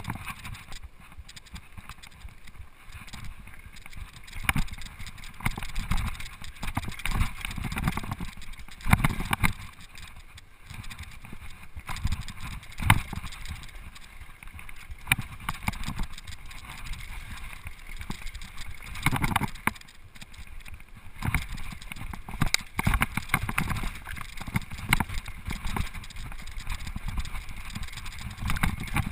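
Mountain bike running fast down a rough dirt trail: tyres rumbling on the dirt, with irregular sharp rattles and knocks as the bike is jolted over bumps.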